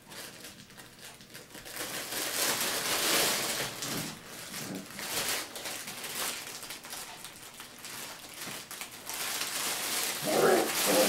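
Puppies scuffling on newspaper and against a fabric play tunnel: irregular rustling and crinkling that grows louder about two seconds in. A short high-pitched voice sound comes near the end.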